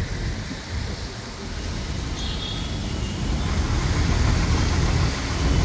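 Road and traffic noise from an open-top double-decker bus on the move: a steady low rumble of engine, tyres and passing traffic that grows louder a little past halfway.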